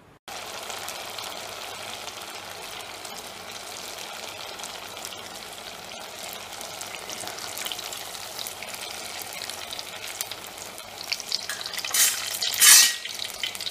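Murukku dough deep-frying in hot sunflower oil, a dense steady crackling sizzle that starts suddenly. A louder rush of noise comes about twelve seconds in.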